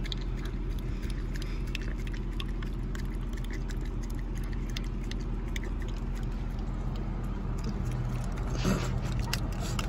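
A dog licking a small cup of a dairy treat: a run of quick, faint wet licks and smacks over a steady low hum from the car.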